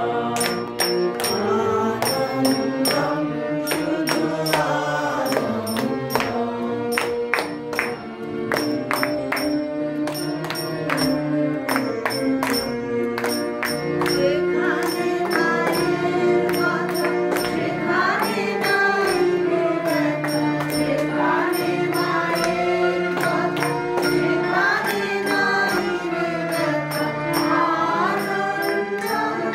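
Group devotional singing accompanied by an electronic keyboard, with small hand cymbals striking a steady beat.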